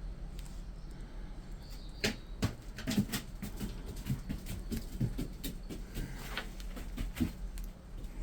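Irregular light clicks and knocks of brake caliper parts and hand tools being handled while pistons and dust seals are fitted, starting about two seconds in and stopping shortly before the end, over a steady low hum.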